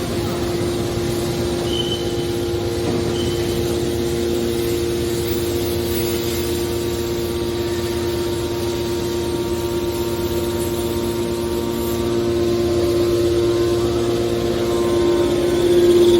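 Hydraulic aluminium scrap baler running: a steady whine from the hydraulic pump and motor over a low mechanical rumble, growing louder in the last few seconds.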